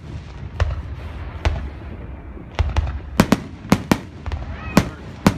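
Aerial fireworks shells bursting overhead: about ten sharp bangs at irregular spacing, coming closer together from about halfway in, with a low rumble between them.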